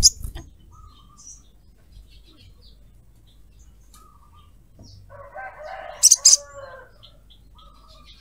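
Caged male olive-backed sunbird: a flutter of wings with a sharp call at the start, a few faint high chirps, then two loud, sharp high chirps about six seconds in. A lower, rougher call lasting a second or two runs under those chirps.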